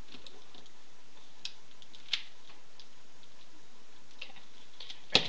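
A few sharp, irregularly spaced clicks and taps from a mobile phone being handled, the loudest one near the end, over a faint steady hiss.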